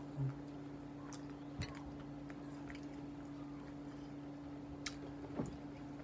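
Close-up mouth sounds of a person chewing food with the mouth closed: a few scattered soft clicks and smacks over a steady low hum.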